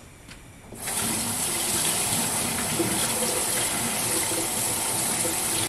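Water running from a kitchen tap: a steady rush that starts about a second in and stops abruptly.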